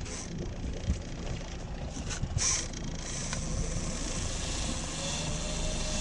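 Boat's outboard motor running steadily at low speed, with a couple of brief knocks around the boat.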